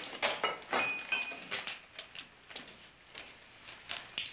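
Irregular scraping and clicking of objects being handled, densest in the first second and a half with a short squeak about a second in, then scattered light ticks.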